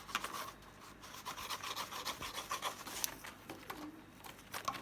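Peach-faced lovebird chewing and tearing at a cardboard toilet-roll tube: continuous dry scratching with many small sharp clicks.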